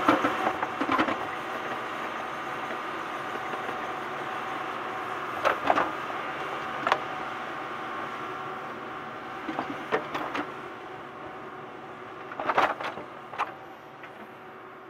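Caterpillar tracked excavator at work: a steady engine and hydraulic drone, with sharp metal clanks and squeaks every few seconds, several in quick succession near the end.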